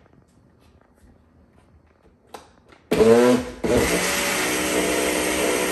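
Countertop blender switched on about three seconds in, its motor whining up in pitch, dipping briefly, then running steadily as it blends thick cream of coconut with coconut milk. A light click comes shortly before it starts.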